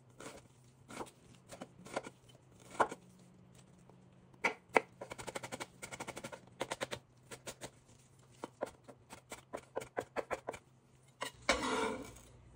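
Chef's knife dicing a red onion on a wooden cutting board: single cuts spaced about a second apart, then quick runs of chopping strokes, each a sharp knock of the blade on the wood. Near the end a brief louder scrape as the blade gathers the diced onion on the board.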